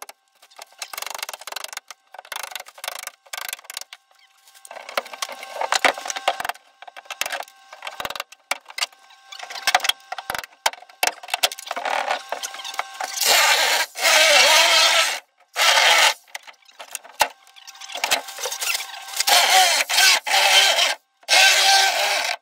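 Demolition of an old fiberglass shower enclosure: irregular bursts of cracking, scraping and grinding as the panels are broken and pulled apart, heaviest in two long spells in the second half.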